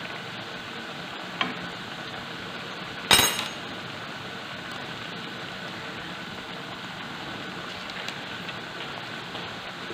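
Piped dough fingers sizzling steadily in hot oil in a frying pan. A fork clinks sharply once against the pan about three seconds in, after a lighter tick.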